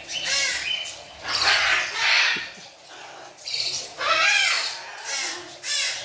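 Yellow-crested cockatoo screeching: a run of six or seven loud, harsh calls in quick succession, some rising and falling in pitch.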